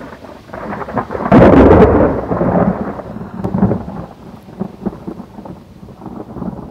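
Rain with a clap of thunder about a second and a half in that rumbles and crackles away.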